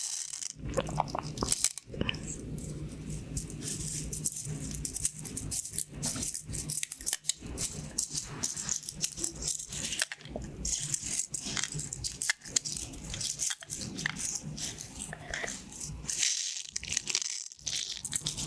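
Pins of a pin art toy sliding and clattering as they are pressed and pushed back: a dense, continuous rattle of small clicks with a few brief pauses.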